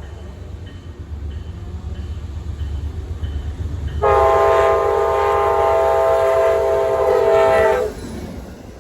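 Amtrak P40DC diesel locomotive approaching at speed with a low, building rumble and a faint bell-like ding about twice a second. About four seconds in, its multi-tone horn sounds one long blast of about four seconds and cuts off, leaving the rumble of the passing train.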